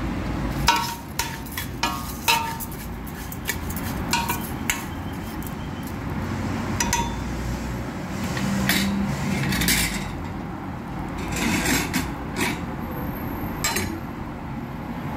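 Metal spoon stirring rice in a stainless steel pot, scraping and clinking irregularly against the metal, some strikes ringing briefly, as the rice browns in a little oil.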